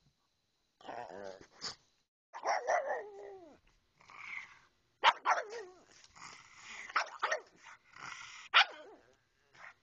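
Pug vocalizing in a run of short outbursts: grumbling barks and whining calls, several sliding down in pitch, the loudest barks coming in the second half.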